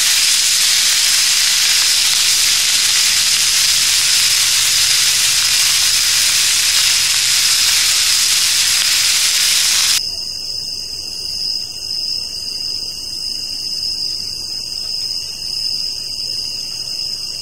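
Sausages sizzling in a hot ridged grill pan: a loud, steady frying hiss that cuts off suddenly about ten seconds in. Afterwards a quieter, steady high-pitched drone of several even tones remains.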